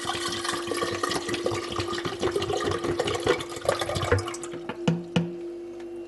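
About a liter of water poured into a dishwasher's salt reservoir, splashing steadily, then stopping about four and a half seconds in, followed by two sharp knocks. This is the first-use filling of the water-softener salt compartment before the salt goes in.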